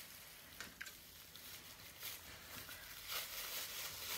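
Quiet table noises during a meal: two light clicks a little before the one-second mark, then soft rustling and handling sounds.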